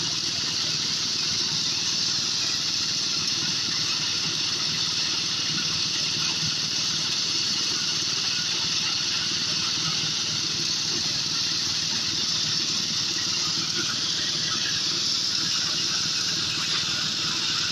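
Motorised corn sheller running steadily: a constant low engine hum under a loud, even hiss.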